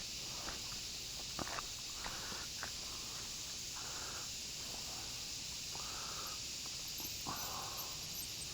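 Steady high-pitched hiss of an insect chorus, with scattered soft rustles and a few sharp clicks throughout.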